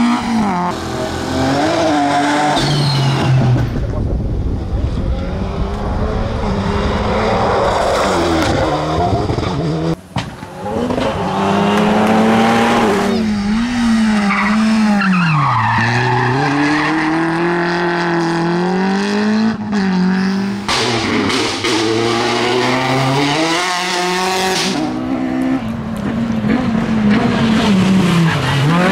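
Small front-wheel-drive rally cars, a Citroën Saxo and Peugeot 206s, driving hard on tarmac stage, engines revving up and dropping back through gear changes and braking, with tyre squeal in the corners. Several cars pass one after another, with a sudden break about ten seconds in.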